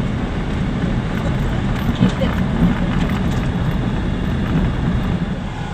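Cabin road noise of a car driving on a gravel road: a steady rumble of tyres on gravel and the engine running, with a few scattered ticks.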